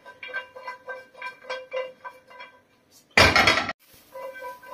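Frying pan being shaken and tossed on a gas hob's grate, clinking and rattling in a steady rhythm of about three clinks a second. About three seconds in comes one loud, brief clatter, then the clinking resumes.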